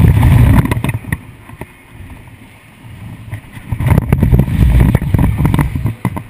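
Rushing wind buffeting the microphone of a camera riding a fast-moving, spinning amusement ride car, with the ride rumbling and rattling. The noise surges loud near the start, dies down to a lull, then surges again from about four seconds in for around two seconds.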